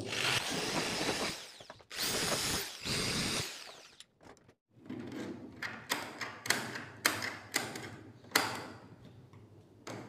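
Corded electric drill with a 1/4-inch bit running in a few short runs, its pitch rising and falling, enlarging a hole into an oval in the edge of a PVC door. After a short pause, a string of sharp clicks and taps as the metal latch is worked into the door edge.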